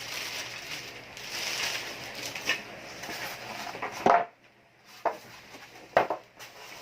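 Plastic packaging rustling as TV accessories are handled, then several sharp clicks and knocks of small hard parts, the loudest about four seconds in.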